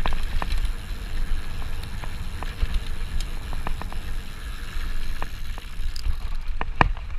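Mountain bike riding fast down a rough dirt trail: a steady low rumble of wind buffeting the microphone and tyres on the ground, with frequent sharp clicks and rattles from the bike over bumps, a few louder ones near the end.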